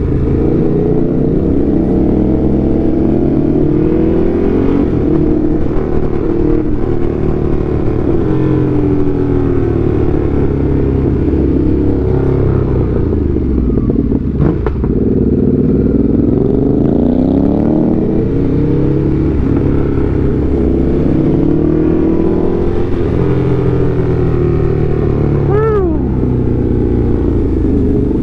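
Sport motorcycle engine under way, its pitch climbing and dropping again and again as the throttle is opened and closed.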